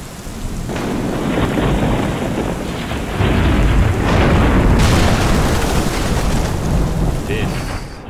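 Thunderstorm sound effect: rain hissing under a deep, rolling rumble of thunder, which swells into a louder crash about three seconds in and eases off near the end.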